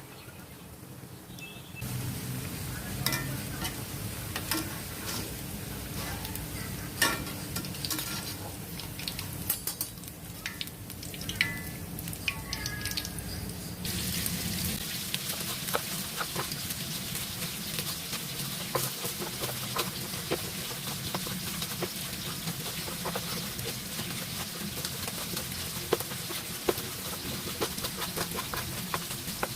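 Cooking utensils clinking and stirring in a pan. About halfway through, a steady sizzle of food frying in hot oil begins, with small clicks and spatters running through it.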